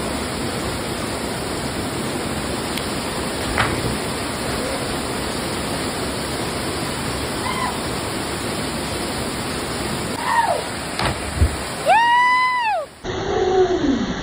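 Waterfall pouring steadily into a pool, with a few faint distant whoops. Near the end comes a loud, drawn-out "woo" shout, then after an abrupt cut another shout falling in pitch.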